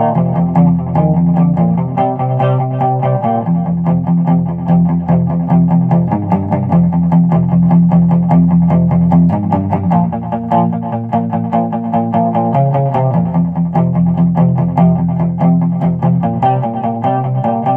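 Gretsch Rose Falcon hollow-body electric guitar playing a boogie, lightly distorted, with plucked notes and chords over low notes held a few seconds at a time.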